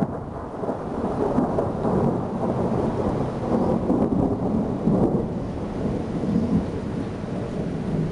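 Thunder from a very large lightning bolt, rumbling and rolling in uneven swells for several seconds and easing off near the end, with rain falling.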